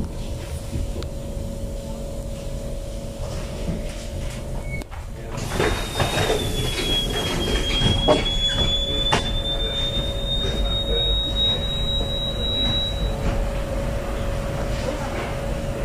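A 1977 Stadtbahn light-rail car running with a steady rumble and a constant hum. About five seconds in, its wheels set up a single high squeal that holds for roughly seven seconds, sagging a little in pitch and then creeping back up before it fades, as the car takes a curve.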